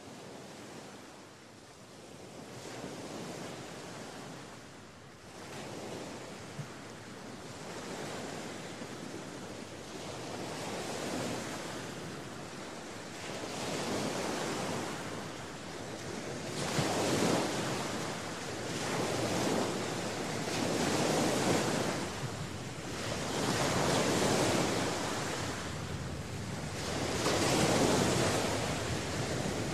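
Surf on a beach: waves washing in, each swelling and fading over two to three seconds, louder in the second half.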